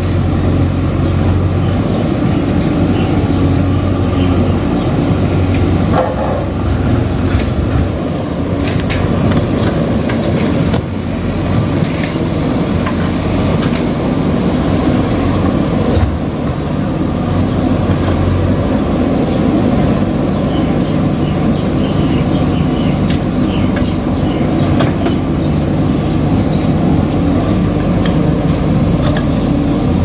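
JCB 3DX backhoe loader's diesel engine running steadily under load as the backhoe arm digs, with a few scattered knocks from the bucket working soil and stones.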